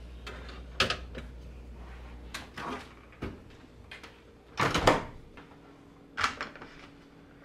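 Knocks and clatters of storage containers and refrigerator drawers being handled, about five in all, the loudest just before five seconds in. A low hum underneath stops about two and a half seconds in.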